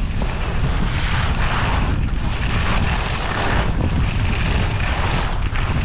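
Wind buffeting the microphone of a camera moving fast downhill on a ski run, a heavy steady rumble, with the hiss of edges scraping across packed snow swelling and fading with each turn.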